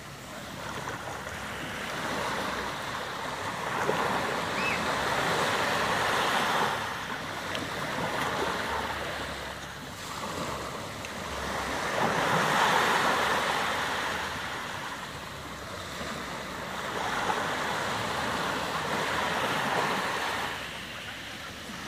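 Small waves breaking and washing up the shore, the surf swelling and easing every six seconds or so.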